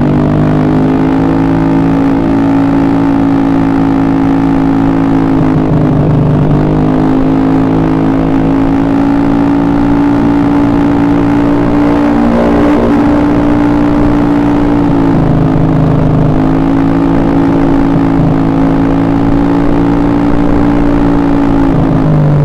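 Small motorcycle engine held at high revs with a steady, even note, easing off briefly about six seconds in and again around fifteen seconds, then climbing back to the same pitch.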